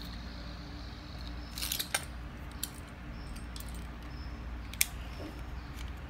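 A few light hard clicks and taps of plastic Beyblade tops against a plastic stadium, a small cluster about two seconds in and single clicks later, over a low steady hum.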